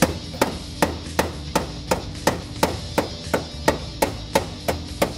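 Hammer striking the sheet-steel lip of a new floor cross brace in a steady run of sharp blows, about three a second, knocking raised edges flat against the floor pan so the welds will penetrate.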